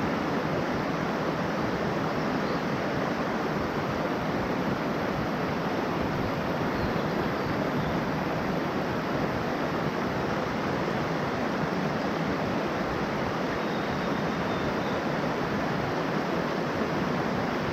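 Mountain headwater stream rushing over rocks: a steady, even rush of water.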